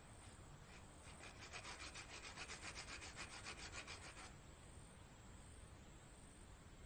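Faint pencil scratching across paper on a clipboard: rapid back-and-forth shading strokes, about nine a second, starting about a second in and stopping after some three seconds.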